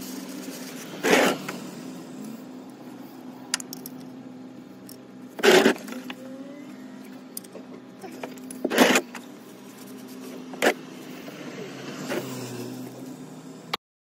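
A wrench working the oil pan drain bolt back in under a car: several short, sharp metallic clanks and fainter clicks a few seconds apart, over a steady low hum.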